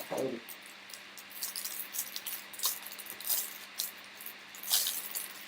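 Trading cards being flicked through and handled, a string of quick, irregular light swishes and ticks, the loudest a little under five seconds in.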